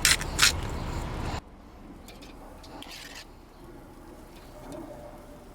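A salt grinder turning, with a couple of ratcheting clicks over a steady hiss that cuts off abruptly about a second and a half in. After that, a quiet background with faint bird calls.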